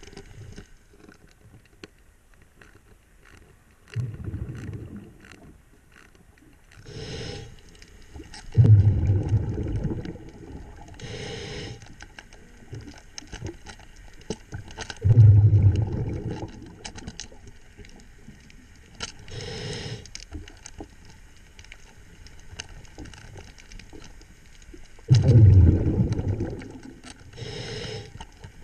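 A diver's regulator breathing underwater: short hisses of inhalation and four loud, low bubbling rumbles of exhalation, one every several seconds. Light metallic clicks come in between as a hand tool works a stainless wire-rope clamp.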